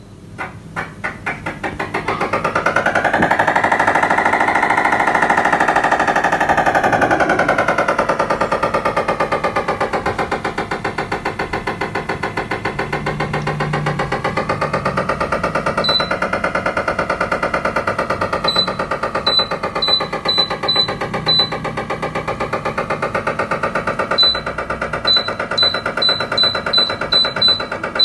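Sharp 1 PK air conditioner running with a loud, fast rattle that speeds up as it starts, then rises and falls in pitch. This is the abnormal noise the unit is being worked on for. Short electronic beeps from the unit come once and then in two quick runs, as commands are received.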